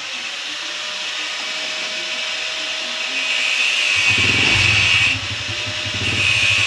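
Kawasaki Fury 125 motorcycle engine starting about four seconds in and running with a fast, even pulse, over a steady high whine.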